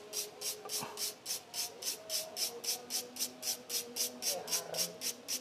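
Quick, even scrubbing strokes, about three to four a second, as caked carbon deposits are scrubbed off a clogged motorcycle engine part.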